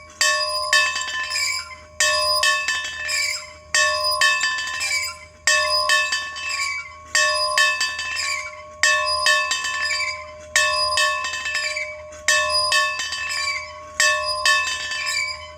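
A bell rung over and over in a steady rhythm: a strong stroke about every one and three-quarter seconds with lighter strokes between, its tone ringing on between strokes.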